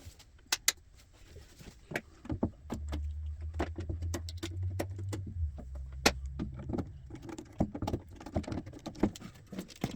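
Scattered clicks, knocks and light rattles of cables, plugs and amplifier hardware being handled on a bench, with a low hum for a couple of seconds around the middle.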